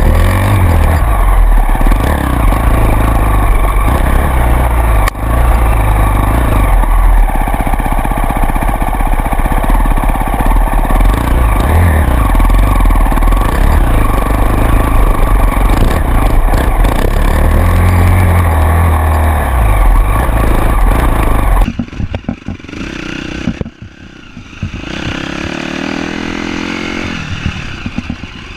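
Off-road motorcycle engine running under way over rough trail, buried in heavy wind rumble on the microphone. About 22 seconds in the sound drops abruptly to a quieter engine, which revs up with a rising whine near the end.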